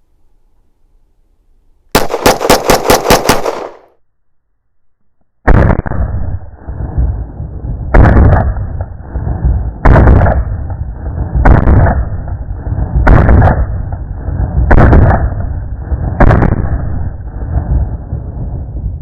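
Canik METE SFT 9mm pistol fired rapid-fire, about eight sharp shots in under two seconds. After a short pause come seven heavier, booming gunshots about a second and a half apart, each followed by a long low rumble.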